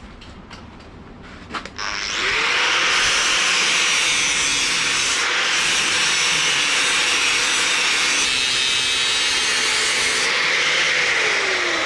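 Angle grinder spinning up about two seconds in and grinding the steel of an old anvil's chisel-marked edge, a steady grind with a whine above it. It is switched off near the end and winds down. A few light knocks come before it starts.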